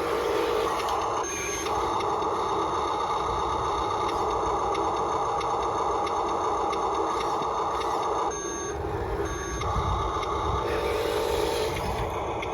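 Small electric gear motors of radio-controlled construction models whining steadily, cutting out briefly about a second in and again for about a second past the eight-second mark.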